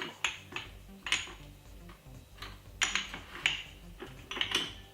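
Kitchen containers and utensils being handled: about a dozen short, sharp clinks and knocks at irregular intervals.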